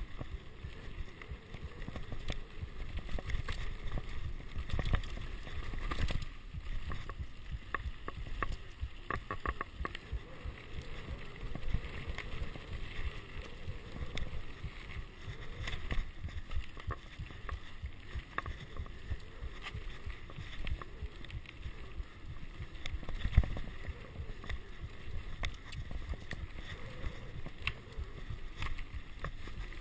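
Mountain bike riding fast down a dirt trail: steady noise of tyres and wind on the handlebar-mounted camera, broken by frequent rattles and knocks from the bike over bumps, the hardest knock about 23 seconds in.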